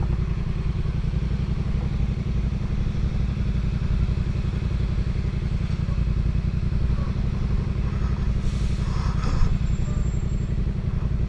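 Motorcycle engine running steadily at low revs with an even, low pulsing beat. A brief knock sounds about nine seconds in.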